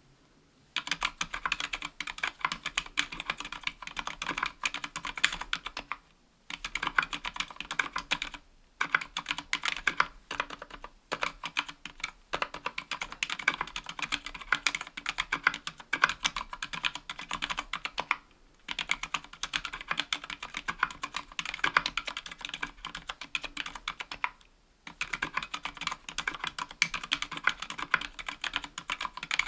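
Continuous fast typing on a KBDfans Tofu 60% aluminium mechanical keyboard with Gateron Silent Black Ink linear switches (dampened silent switches) and GMK keycaps. It starts about a second in and stops briefly several times.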